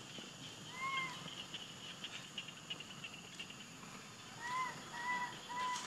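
Baby macaque giving short, clear, whistle-like coo calls, each rising and falling: one about a second in, then three in quick succession near the end. These are an infant's distress calls for its mother.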